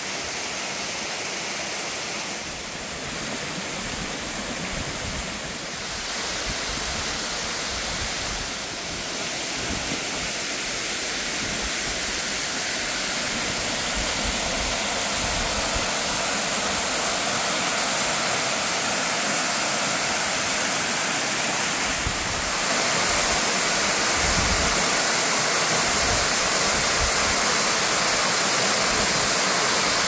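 Hyakuhiro Falls pouring into its plunge pool: a steady, even rush of falling water that grows louder as the fall gets nearer, stepping up a little after two-thirds of the way through.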